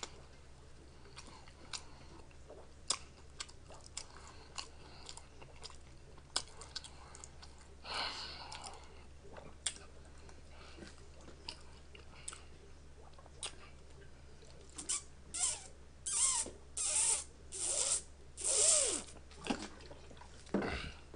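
Faint chewing and wet mouth clicks, then near the end a run of about seven or eight loud gulps as a drink is swallowed from a spouted jug.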